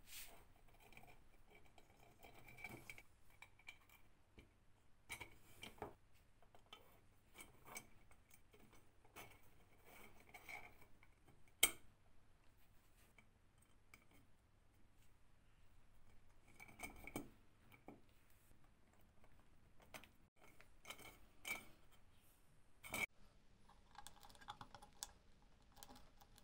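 Faint, scattered clicks, taps and light scrapes of small stove parts being handled and fitted together by hand, with one sharper click near the middle.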